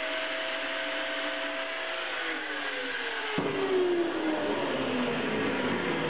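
An electric power tool's motor whining at speed, then spinning down after it is switched off, its pitch falling steadily over a few seconds.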